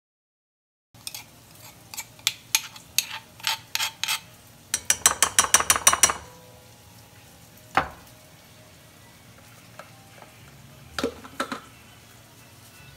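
Metal spoon clinking and scraping against a stainless steel bowl and a marble mortar as crushed garlic is scraped into melted butter and stirred. Irregular clinks start about a second in, with a quick run of clinking about five seconds in and a few single knocks after.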